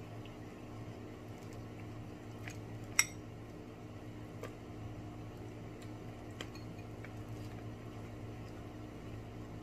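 Tableware clinking while eating: one sharp ringing clink about three seconds in and a few softer taps, over a steady low hum.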